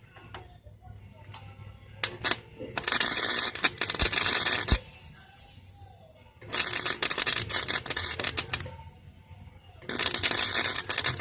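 Electric welding arc crackling in three bursts of about two seconds each, with short pauses between, joining a new sheet-metal patch into a vehicle's rusted-out panel. A few sharp clicks come just before the first burst.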